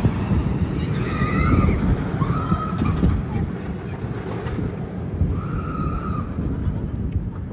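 Riders on a suspended looping roller coaster screaming in three drawn-out cries, over a steady low rumble of the train on its track mixed with wind on the microphone.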